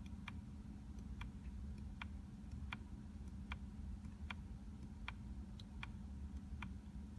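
Light, evenly spaced ticks inside a 2017 Infiniti Q50's cabin, about one every three-quarters of a second, over a faint steady hum.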